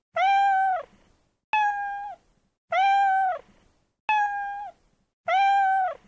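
A cat meowing five times in a row, about one call every 1.3 seconds; each meow holds a steady pitch and then falls away at its end.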